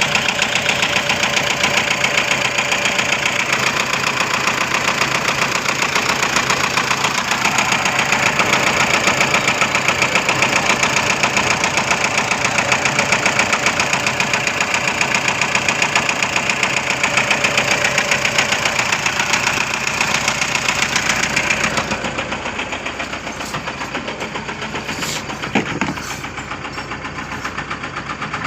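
Toyota Innova engine idling with a rapid, even knock running through it, the sign of a knocking fault in the engine. About three quarters of the way through it gets a little quieter, and a single sharp click follows a few seconds later.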